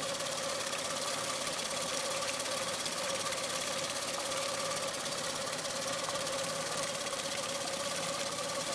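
YAMABISI F15 four-stroke outboard motor, cowling off and lower unit in a water test barrel, running steadily at an even speed with a constant hum and no change in revs.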